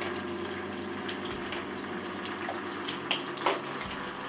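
Sliced onions sizzling in hot oil in a kadhai, a steady frying hiss, with two sharp clicks about three seconds in.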